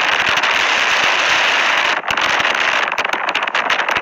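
Strong tornado wind buffeting the phone's microphone: a loud, steady rushing noise that breaks into rapid crackling distortion in the last second or so.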